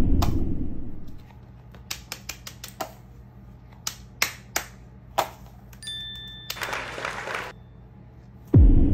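Edited-in sound effects with small plastic clicks and taps: a deep falling boom dies away, then scattered sharp clicks, a short ding, and a soft whoosh, with another deep falling boom starting near the end.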